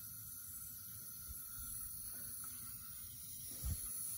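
Faint, steady hiss of water running through a Fluidmaster toilet fill valve as the supply is turned back on after a new valve seal is fitted. A light knock comes near the end as the valve cap is handled.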